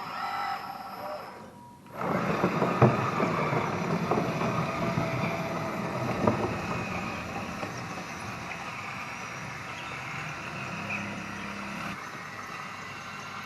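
A Kabolite radio-controlled hydraulic construction model starts up abruptly about two seconds in and runs with a steady mechanical whir. A few sharp knocks come in the first seconds, and the sound eases slowly after that. Before it starts, the tail of a short musical intro is heard.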